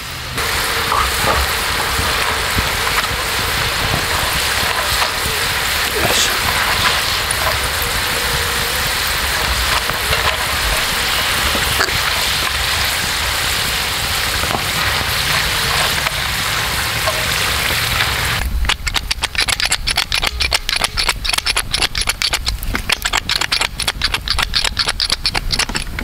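Oil sizzling steadily as potato fries deep-fry in a black iron skillet. For the last several seconds it turns into a rapid run of sharp crackles.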